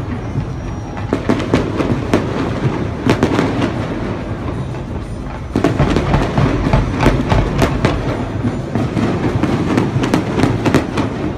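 Fireworks display going off: rapid, overlapping cracks and bangs over a continuous rumble, growing denser and louder about halfway through.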